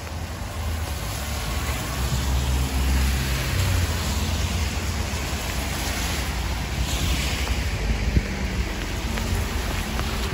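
Steady rain hiss with a car's tyres swishing past on the wet road, loudest about two-thirds of the way in, over a low rumble.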